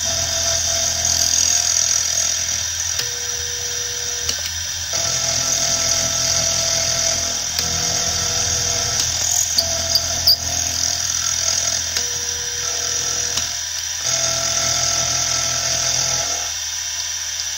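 Milling machine running an end mill through a metal workpiece: a steady high whine, with the tone of the cut changing every few seconds. A couple of small clicks about ten seconds in.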